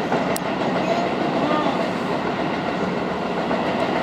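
Electric commuter train running on the line, heard from inside the passenger car: a steady rumble of wheels on track and motor noise, with one short sharp tick about half a second in.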